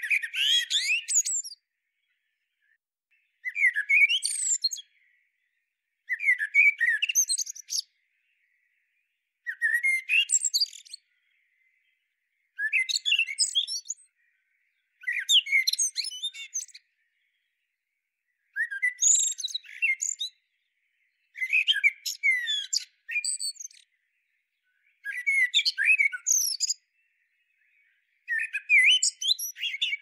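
Male common blackbird singing: short phrases of whistled and twittering notes, about ten of them, one roughly every three seconds with silence between.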